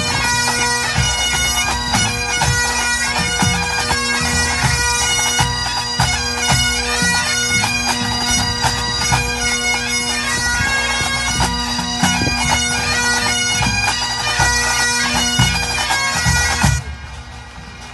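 A pipe band of Great Highland bagpipes playing a melody over steady drones, with snare, tenor and bass drums beating beneath. The whole band stops together about a second before the end.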